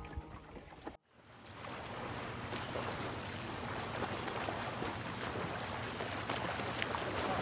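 A guitar tune fades out and cuts off about a second in, giving way to outdoor sound by the water: water lapping and wind on the microphone, with scattered small ticks and a faint steady low hum underneath.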